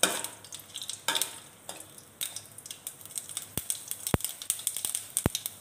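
Mustard seeds popping and spattering in hot groundnut oil in a kadai, with a steel ladle stirring. A few louder clicks come about a second apart at first, then many small quick pops.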